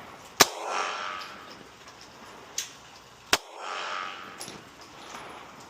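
Gunshots at a shooting range: two sharp shots about three seconds apart, the first the loudest, with a fainter crack just before the second. Each loud shot is followed by a rolling echo that fades over about a second.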